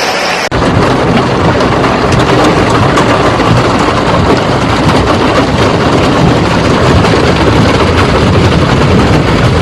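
Road traffic in heavy rain: vehicle engines running with a steady low rumble and rain noise, starting suddenly about half a second in.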